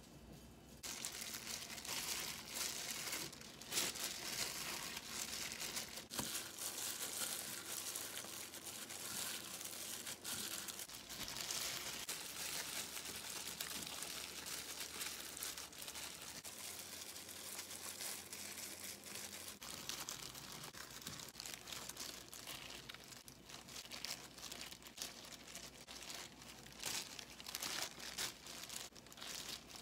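Thin disposable plastic gloves crinkling and rustling as gloved hands spread and press sticky rice over a sheet of dried seaweed for kimbap, an uneven crackle that starts about a second in and keeps going.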